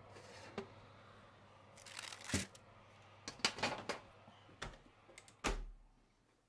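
Metal baking trays and hot scones being handled on baking parchment: a run of knocks, clicks and paper rustles, with a heavier low thump near the end.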